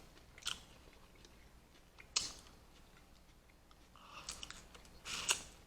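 A person chewing food close to the microphone, with a few short, soft wet mouth sounds scattered through; the loudest comes near the end.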